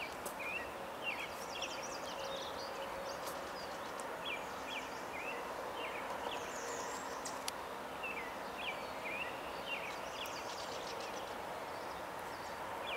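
Wild birds singing: many short, quick chirped notes recurring throughout, over a steady outdoor hiss with a faint steady hum.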